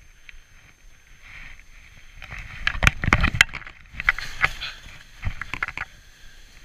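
Skis turning through soft snow, quiet at first, then from about two seconds in a run of hissing scrapes and sharp knocks that come in groups with each turn, loudest about three seconds in.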